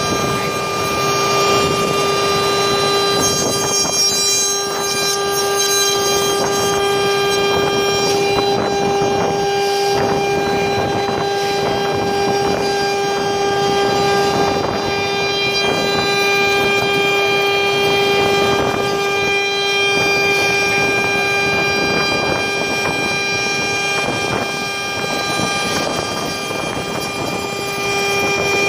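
HSD electric spindle of a CNC router running at constant speed with a steady high-pitched whine while its bit routes grooves into a wood panel. Under the whine is a rushing cutting noise that swells and eases as the head moves along the board.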